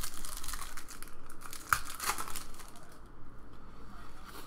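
Foil wrapper of a Panini Diamond Kings baseball card pack being torn open and crinkled by hand, loudest in the first two seconds with one sharp crackle in the middle, then fainter rustling as the cards are handled.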